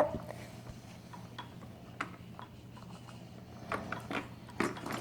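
Scattered light clicks and rattles of the plastic toy parts on a baby Jumperoo being handled, getting busier near the end.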